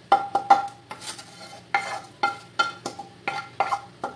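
A wooden spatula scraping and tapping a metal frying pan tipped over a stainless steel pot as the sautéed shrimp paste and pork are emptied out: a quick, irregular series of about a dozen taps, each ringing briefly.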